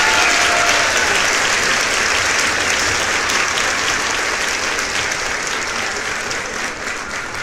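A crowd applauding, a dense clapping that slowly dies away.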